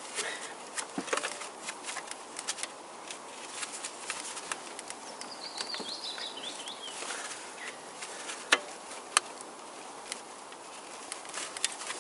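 Pliers clicking and scraping on a rusted, seized gearshift cable joint. The sound is a string of small, irregular metal clicks and taps, with two sharper clicks a little past the middle.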